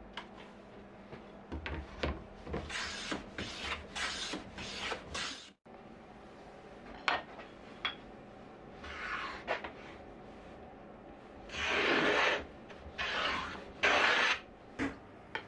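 Hand plane strokes shaving wood. First comes a run of about five short, quick strokes. After a break come a few longer strokes of a plane run on its side along a shooting board, the loudest near the end.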